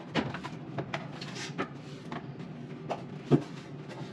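Scattered light knocks and clatter of a broom and dustpan being handled during floor cleaning, with one louder knock about three seconds in, over a steady low hum.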